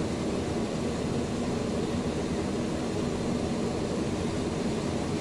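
Twin jet engines of a Cessna Citation business jet idling, heard from inside the cockpit as a steady, even noise with a low hum.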